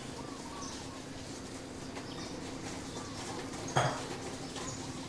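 Outdoor garden ambience: faint short bird chirps over a steady low hum, with one sharp knock nearly four seconds in.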